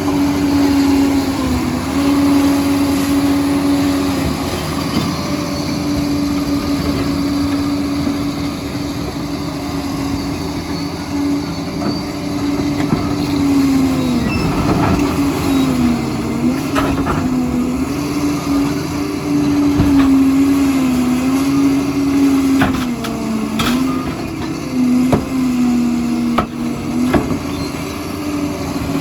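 Liebherr 746 crawler dozer's diesel engine running at a steady pitch that dips briefly a few times, with a few sharp knocks along the way.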